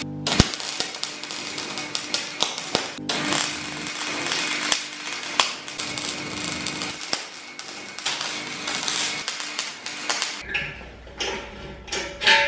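Arc welding on steel square tubing: a steady crackle as the bead is laid, with a short break about three seconds in. It stops about ten seconds in, and a few metal clanks follow as a steel tube piece is handled near the end.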